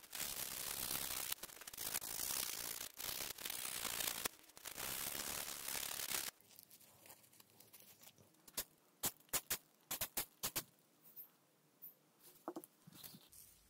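Blue abrasive paper rubbed by hand over a small metal speedometer part: scratchy sanding strokes with brief breaks, stopping about six seconds in. A few seconds later comes a quick run of sharp clicks.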